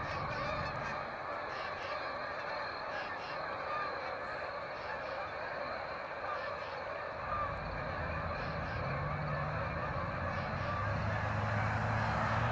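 A large flock of geese honking continuously, many birds calling over one another. A low steady hum joins a little past halfway and grows slightly louder.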